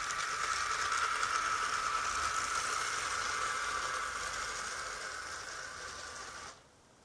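Lego monorail train's motor and gear whirring as it drives along the toothed monorail track over the switch. It is loudest as the train passes close by, slowly fades as it moves away, and cuts off suddenly near the end.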